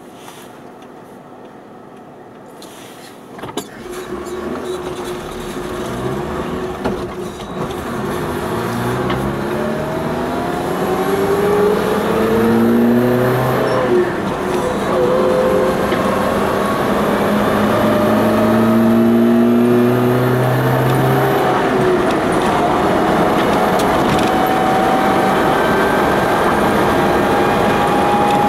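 A vehicle's engine pulling away from a standstill and accelerating through the gears: it rises in pitch three times with gear changes between, then settles to a steady cruise with tyre and road noise, heard from inside the cab.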